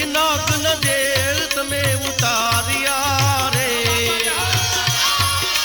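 Devotional Gujarati folk bhajan music: a wavering, ornamented melody over a steady hand-drum beat of about two strokes a second.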